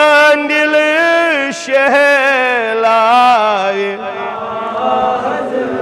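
A man chanting a Kashmiri naat solo, without instruments, in long drawn-out wavering notes, with a short breath about a second and a half in.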